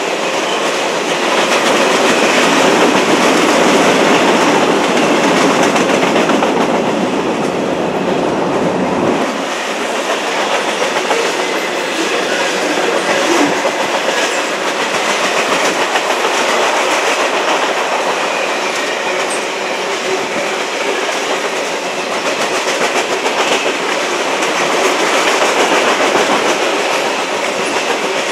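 CSX freight train's cars rolling past, their steel wheels running steadily with a clickety-clack over the track. The deep rumble drops away about nine seconds in.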